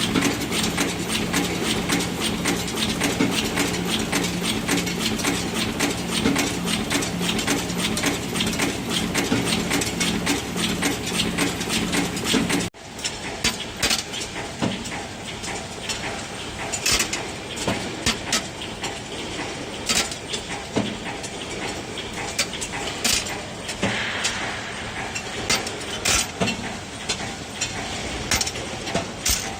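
Yeswin YBP10B5S five-station bolt former running, a dense, steady mechanical clatter over a low hum. About thirteen seconds in the sound cuts abruptly to a quieter stretch of separate sharp knocks and clicks from the machine.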